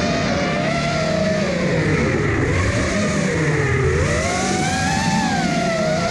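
Brushless motors and propellers of an FPV racing quadcopter whining, the pitch sliding down and back up with throttle changes.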